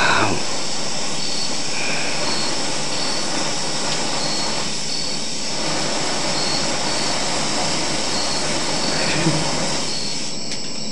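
Aerosol bug spray lit with a lighter as a makeshift flamethrower: the burning spray jets out with a steady hissing rush. It flares up with a louder burst at the start and dies away near the end.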